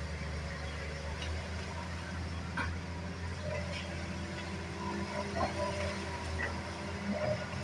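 Hitachi hydraulic excavator's diesel engine running with a steady low drone, with a few faint clinks over it.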